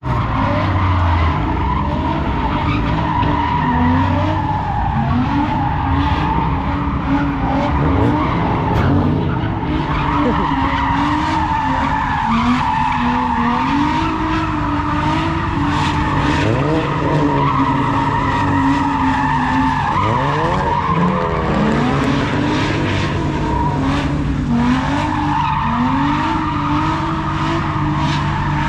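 A car drifting: its tyres screech without let-up while the engine revs rise and fall over and over, with a couple of quick rev climbs partway through.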